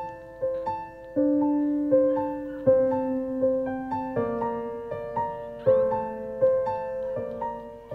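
Background music: a slow piano melody, notes struck about once or twice a second and left to fade.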